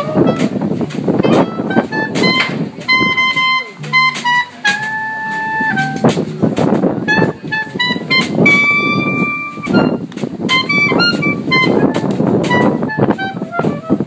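Small jazz combo playing: a clarinet plays the melody with several long held notes over electric guitar, upright bass and drums, with frequent cymbal strokes.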